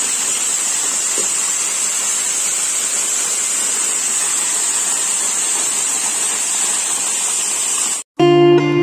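Waterfall: a steady, even rush of falling water, which cuts off suddenly about eight seconds in, followed by guitar music.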